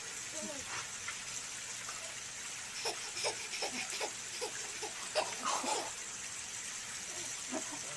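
Baby giggling and squealing a few times as a puppy climbs on him, the laughs clustered between about three and six seconds in, over a steady background hiss.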